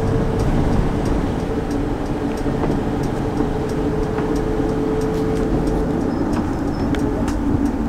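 Cabin noise inside a moving Mercedes-Benz Sprinter passenger van: a steady low rumble of road and engine with a faint steady hum over it.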